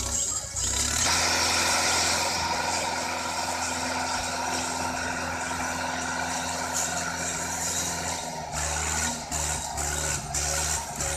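Hindustan tractor's diesel engine running hard under heavy load while hauling a trolley piled with sugarcane. About eight and a half seconds in, the engine note changes and starts to rise and fall.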